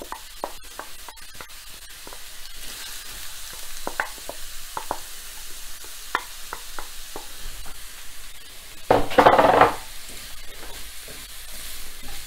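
Diced carrots sizzling in hot oil in a pan, with a wooden spatula clicking and scraping as they are pushed off a bowl and stirred. A louder burst of under a second comes about nine seconds in.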